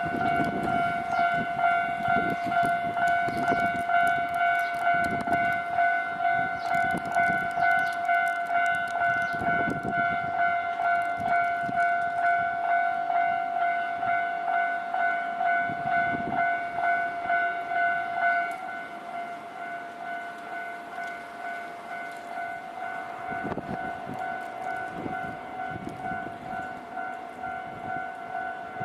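Japanese railway level-crossing warning bell ringing a steady repeating tone, about two strokes a second. About two-thirds of the way in it drops noticeably in loudness but keeps ringing. Irregular low rumbles run underneath.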